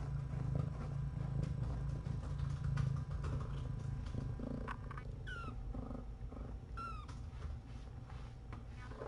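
A cat purring steadily, loudest in the first three seconds. About five and seven seconds in, two short high kitten mews are heard, each dropping in pitch.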